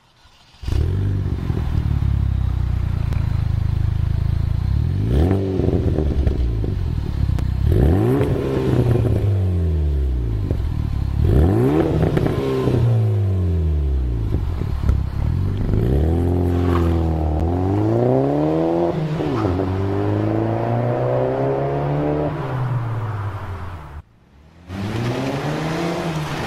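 Chevy HHR SS's turbocharged 2.0-litre four-cylinder, breathing through a Magnaflow aftermarket exhaust, idling and revved in place: three quick revs that rise and fall, then longer revs held high for a few seconds each. Just after 24 seconds in, the sound breaks off briefly and comes back with the car accelerating as it drives.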